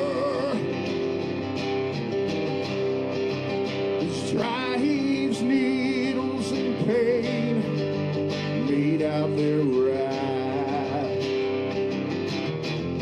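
Live song in an instrumental stretch: guitar holds steady chords under a lead melody that bends sharply upward and wavers in pitch, with no words sung.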